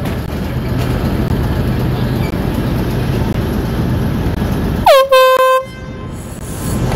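A short horn blast about five seconds in: the pitch drops quickly, then it holds one steady note for under a second. Under it runs a steady low rumble and hum of machinery.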